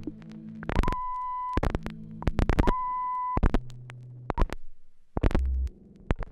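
Abstract turntablism: a turntable stylus playing broken and scratched vinyl records, with sharp clicks and pops as the needle is set down and moved. Two short high steady tones sound about a second apart, and low hums and drones cut in and out abruptly.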